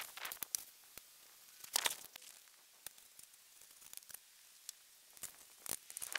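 Snow being raked off a roof with a long-handled roof rake: irregular crunching and scraping bursts as the rake works into the packed snow, loudest about two seconds in and again near the end.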